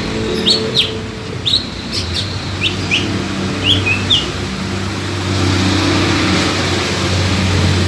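Cucak ijo (green leafbird) calling: a quick series of short, sharp sweeping chirps in the first four seconds, then quiet from the bird. A steady low hum, like a vehicle engine, runs underneath.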